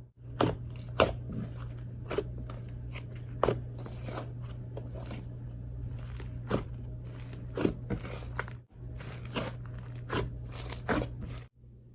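Fluffy, inflating taro-scented slime being pressed and poked by hand, giving a string of sharp clicks and crackly pops from trapped air.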